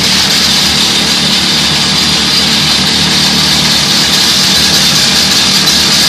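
Pneumatic rock drill running loud and steady, its drill steel boring a hole into the tunnel's rock face.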